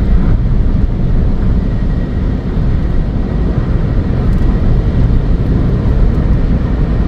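Ford Fiesta 1.0 EcoBoost driving at high speed, heard from inside the cabin: a steady, even rumble of road and wind noise with no distinct engine note or knocks.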